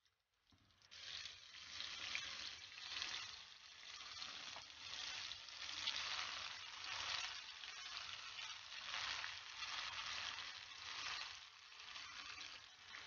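Gram-flour-battered fish pakora pieces deep-frying in hot oil in a pan, sizzling steadily. The sizzle comes in about a second in.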